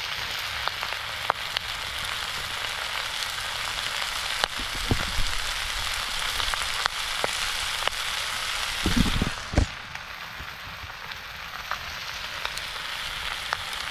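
Pork curry frying in oil in a pan, with chilli powder just added: a steady sizzle with scattered small pops. A few low thumps come about nine seconds in, and the sizzle eases a little after them.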